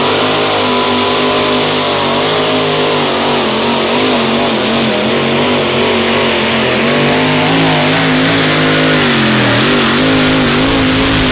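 Supercharged engine of a mini modified pulling tractor running loud at full throttle as it drags the pulling sled down the track. The pitch holds mostly steady with small wavers, dipping briefly a little before the end.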